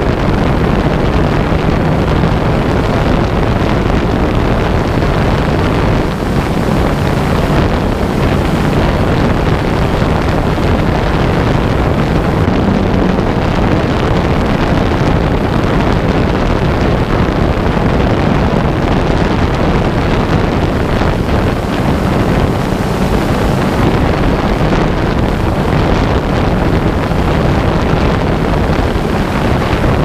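Loud, steady wind rush on the microphone of a drone-borne camera, with the faint low hum of the drone's motors under it.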